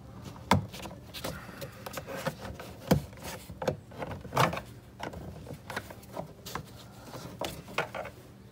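Plastic interior trim being pried off a car's rear door panel: scattered clicks and rubbing of plastic, with a sharp click about half a second in and another about three seconds in.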